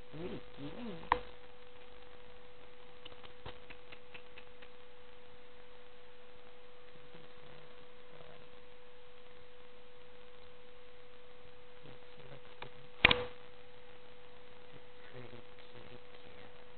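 A steady electronic hum held at one pitch, with a small click about a second in and a sharp knock about thirteen seconds in.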